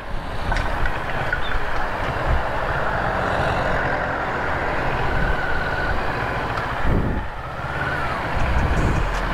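CFMoto 400NK motorcycle's parallel-twin engine running at low road speed, under steady road and wind noise.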